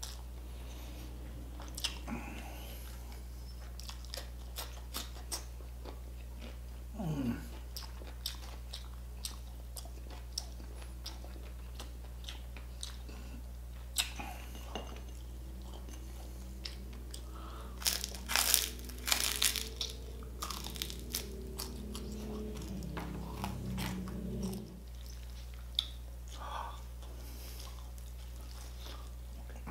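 Close-miked mouth sounds of a man eating crispy fried pork belly (lechon kawali): repeated sharp crunches and chewing, with a louder run of crunches a little past the middle.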